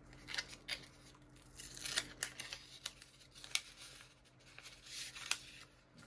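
Small kraft paper envelope being opened by hand and sticker cards slid out of it: a string of short, sharp paper crackles and rustles.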